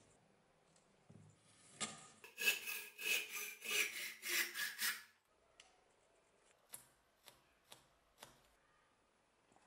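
Hand saw cutting through a thin wooden board clamped in a vise: a quick run of rasping back-and-forth strokes, about three a second, lasting about three seconds. A few light clicks follow.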